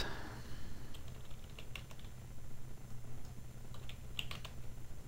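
Typing on a computer keyboard: light, irregular key clicks, some in quick runs, over a low steady hum.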